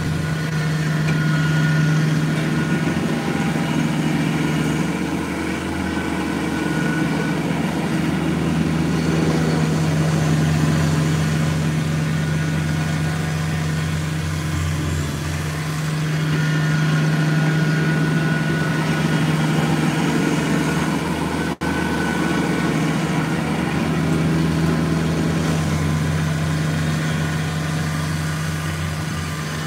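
Kubota BX23S compact tractor's three-cylinder diesel running at a steady speed, its sound swelling and fading as it moves back and forth clearing snow.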